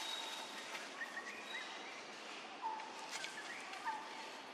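Birds calling in short whistled notes, a few in a row, some stepping up in pitch and some starting with a quick downward flick, over a steady outdoor hiss.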